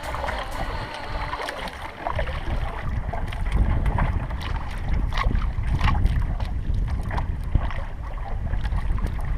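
Wind buffeting the microphone over a small canoe on open water, a heavy low rumble that grows stronger about two seconds in, with scattered short knocks and splashes.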